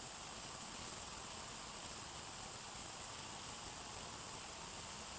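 Faint, steady hiss with a thin, high, steady whine over it, and no distinct events: quiet night-time background.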